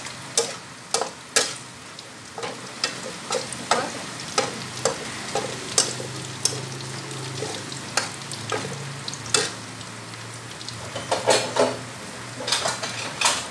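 Fish balls and diced Chinese sausage sizzling in the sausage's rendered fat in a metal wok, while a metal spatula stirs them, clinking and scraping against the pan. The clinks come irregularly, about one or two a second, with a quick flurry near the end.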